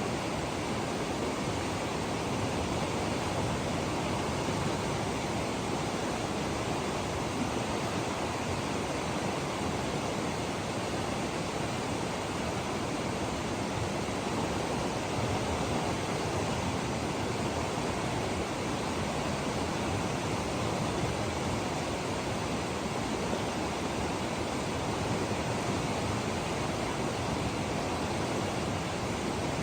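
Mountain river rushing steadily, an even wash of water noise with no breaks.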